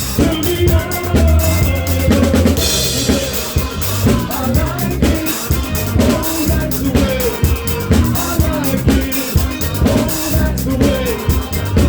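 A soul band playing live, heard close to the drum kit: bass drum, snare and cymbals drive a steady beat over a moving bass line and other instruments, with a cymbal crash shimmering about three seconds in.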